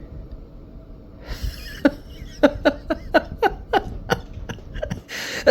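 A person laughing: a breathy intake about a second in, then a quick run of short bursts, each dropping in pitch, that dies away near the end.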